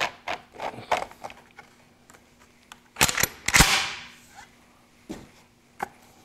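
Small metal clicks as the fore-end cap is screwed onto a Remington 1100 semi-automatic shotgun, then a sharp clack and a louder clattering scrape about three seconds in as the gun is turned and handled, with a few light knocks near the end.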